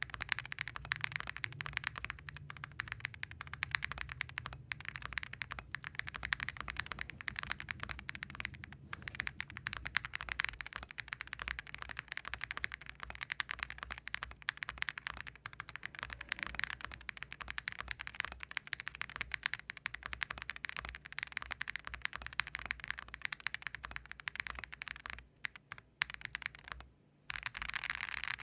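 Fast, continuous typing on a Meletrix Zoom75 mechanical keyboard with WS Morandi switches, PBT keycaps and case and plate foam but no PE foam: a soft, marbly clacking that is not loud, with a brief pause near the end.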